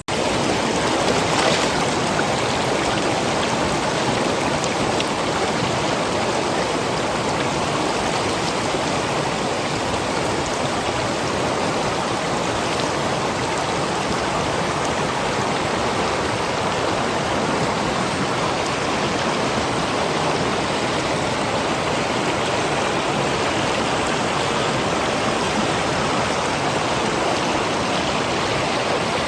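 Mountain valley stream: water rushing steadily.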